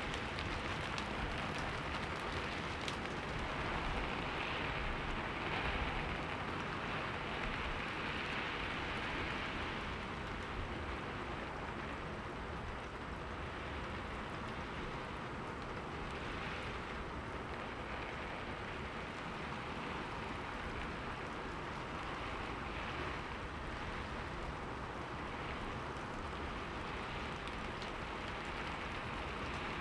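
Steady rain falling on a window, a dense even patter with scattered drop ticks, a little fuller in the first third.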